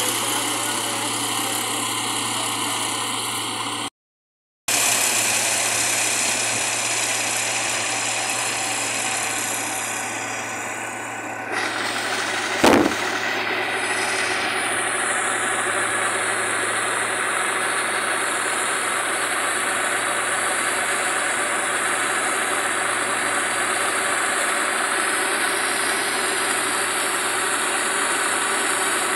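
Combine harvester running steadily while harvesting and unloading rice. The sound drops out for about half a second about four seconds in, and there is one sharp knock near the middle.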